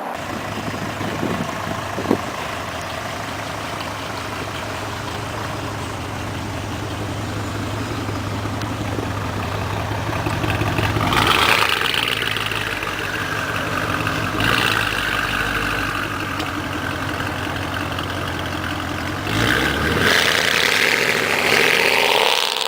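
Porsche sports-car engine idling with a steady low note, a sharp click about two seconds in, then swelling louder with rising revs twice, about halfway and again near the end.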